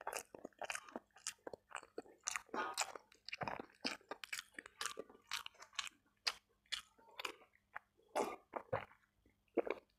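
Close-miked chewing and crunching of a mouthful of rice, fried tempe and vegetables, with many short crunches and wet mouth sounds in quick succession, thinning out over the last few seconds as a drink is taken.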